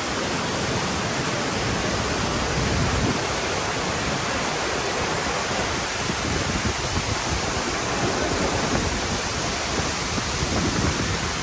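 Steady rushing of falling water from a waterfall, an even, unbroken noise.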